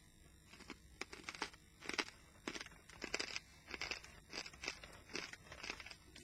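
Close-up chewing of hard, crunchy pork scratchings, with irregular sharp crunches several times a second.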